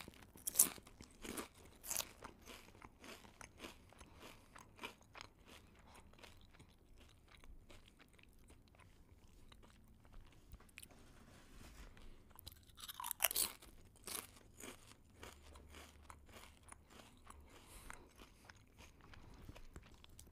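A person chewing crunchy food close to the microphone: irregular crisp crunches, with louder bites near the start and again about two-thirds of the way through.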